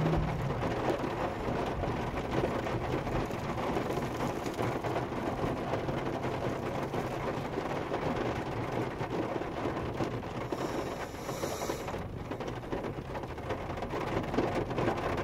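Heavy rain pattering steadily on a parked car's roof and windshield, heard from inside the cabin.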